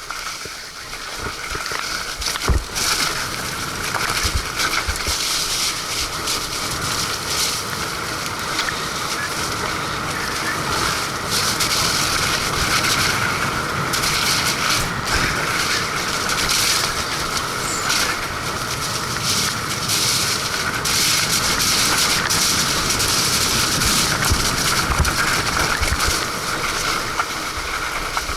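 Mountain bike ridden over a wet, muddy trail: steady rushing tyre noise with frequent knocks and clatters as the bike rattles over rough ground.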